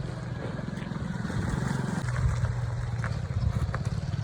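A motor vehicle's engine running steadily: a low, pulsing drone that grows a little louder in the second half.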